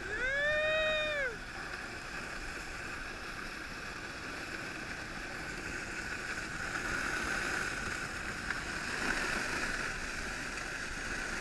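Plastic sled sliding down a snow slope: a steady scraping hiss. Just at the start a rider gives one long yell, about a second long, rising then falling in pitch.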